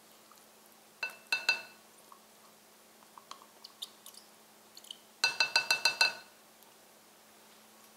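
Kitchen utensil and measuring cup clinking against a glass mixing bowl as pumpkin purée is scraped in: two ringing clinks about a second in, a few faint ticks, then a quick run of about seven taps a little past halfway.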